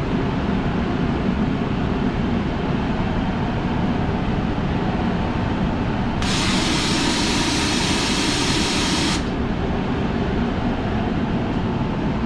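Steady loud drone of running boiler room equipment, with a hiss of escaping air or steam that starts suddenly about six seconds in and cuts off about three seconds later.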